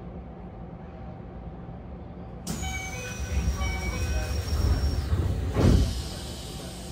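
Keisei 3000-series electric train running, heard from inside the passenger car: a steady rumble, then about two and a half seconds in a sudden louder rush with several squealing tones and a slowly falling high whistle. The rush ends with a thump and dies back to the steady rumble shortly before the end.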